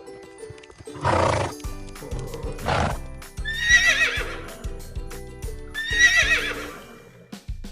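Horse whinnying twice, each call wavering in pitch and lasting under a second, after two short breathy blasts, over light background music.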